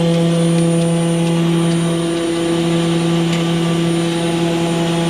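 Concrete mixer truck's diesel engine running steadily at a raised idle, a constant even hum, with a few faint light taps over it.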